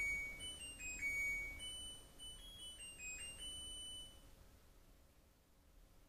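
LG F84902WH washing machine's buzzer playing its end-of-cycle tune, the sign that the wash has finished: a short melody of high electronic beeps that stops about four seconds in.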